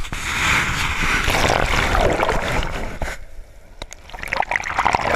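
Shallow surf rushing over and around a camera held at water level, an even wash of water that drops away about three seconds in. Splashing and water sloshing return near the end.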